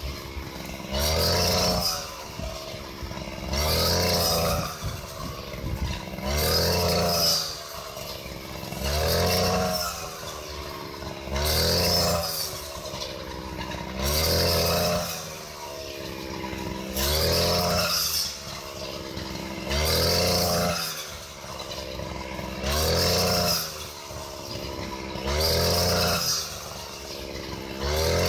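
Backpack brush cutter's petrol engine revving up with each sweep through standing wheat and dropping back to idle between sweeps. It surges about every 2.7 seconds, each surge rising and falling in pitch over about a second.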